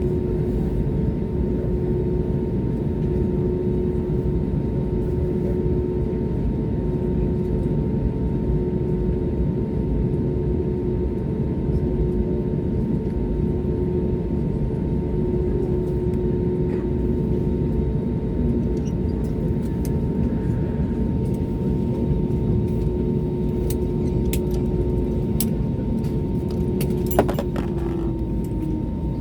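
Steady rumble and hum of an Airbus A320neo's cabin air supply at the gate after engine shutdown, heard from inside the cabin. A sharp click comes near the end, after which the hum starts to fall in pitch.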